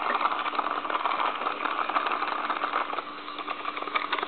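Battery-powered toy hamster running in its plastic exercise wheel: a steady small-motor whir with fast, even clicking and rattling of the plastic, dipping a little about three seconds in.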